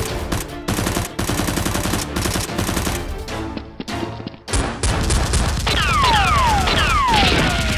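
Rapid bursts of automatic gunfire sound effects over background music. Over the last couple of seconds, several falling whistling tones are laid on top.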